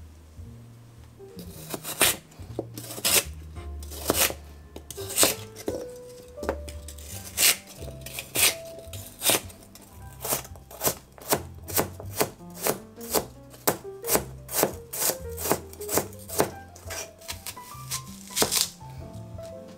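Kitchen knife chopping on a cutting board. The strokes come about once a second at first, then faster, two or three a second, from about halfway. Soft background music plays underneath.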